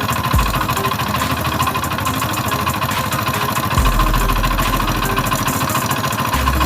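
Hero Honda Splendor motorcycle engine idling with a steady, rapid knocking from the bottom end. This is the sign of a failed connecting rod on the crank, which the mechanic finds fully seized.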